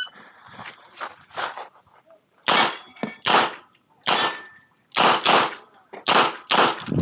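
Smith & Wesson 929 9mm revolver firing a string of about eight shots, roughly one every half to three-quarters of a second, starting about two and a half seconds in. There are faint knocks before the first shot and a short metallic ring after one of the shots.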